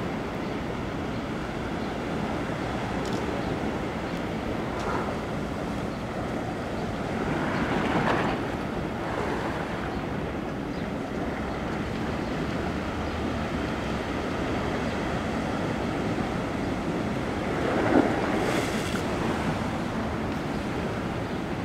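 Ocean waves washing against the shore, a steady rush that swells louder twice, about eight seconds in and again near eighteen seconds.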